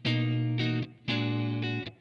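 Electric guitar played through a Blackstar AMPED 2 pedal amplifier set to its EL84 tube response: two chords, each held a little under a second and cut off short.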